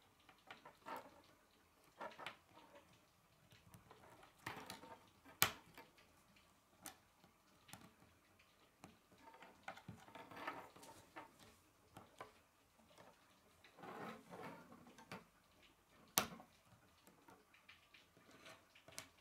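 Faint clicking and rattling of plastic K'nex rods and connectors being handled and snapped together, with two sharper snaps, about five seconds in and again about sixteen seconds in.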